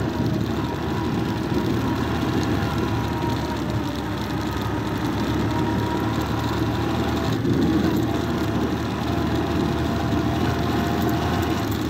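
Honda motorcycle engine running steadily while riding along a rough dirt road, with a constant engine drone and road noise.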